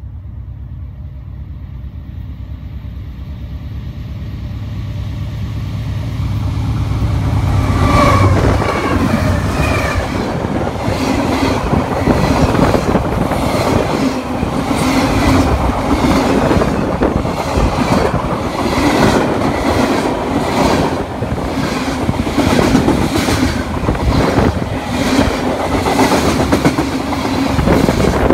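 Norfolk Southern freight train passing close by. A low rumble grows louder over the first several seconds as the train nears, then the freight cars roll past with a steady, rapid clickety-clack of steel wheels over the rail joints.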